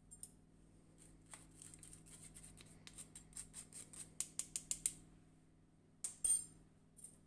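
Fine-mesh metal sieve tapped by hand to sift baking powder: a run of light taps that quicken to about five a second, then a louder clatter about six seconds in.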